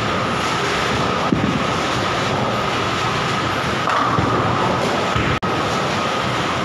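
Bowling ball rolling down a lane with a steady rumble, a thump about a second in, and a clatter of pins about four seconds in, over the constant din and steady hum of the bowling alley.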